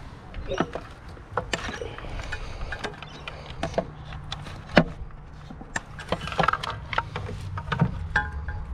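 Scattered knocks and clatter of objects being moved around in a pile of curbside rubbish, with one sharper knock about halfway through, over a steady low hum.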